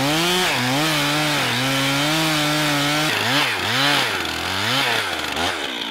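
Gas chainsaw with a 32-inch bar cutting through a log, running steadily under load for about three seconds, then its engine speed surging up and down about twice a second.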